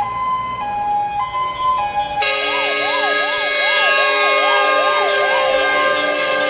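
Fire engine's siren. It sounds a two-tone hi-lo pattern, then about two seconds in switches abruptly to a fast up-and-down wail, as the truck sets off on an emergency run.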